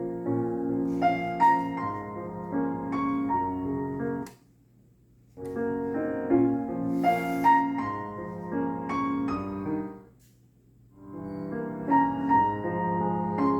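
Piano music, with notes and chords over a sustained low register. It twice drops to near silence for about a second, a little after four seconds in and again around ten seconds in.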